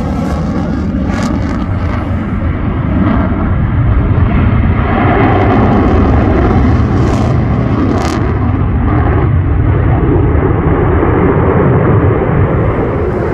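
Lockheed Martin F-22A Raptor's twin Pratt & Whitney F119 afterburning turbofans in a loud, steady jet roar with afterburners lit, growing louder about 4 seconds in, with a few sharp cracks.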